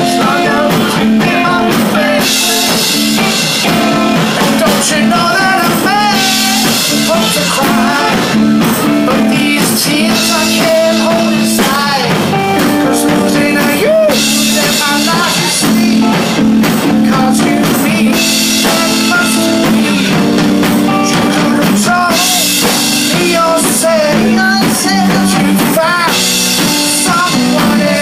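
Live rock-and-soul band playing loud: a man singing lead into a microphone over electric guitar and a drum kit with cymbals.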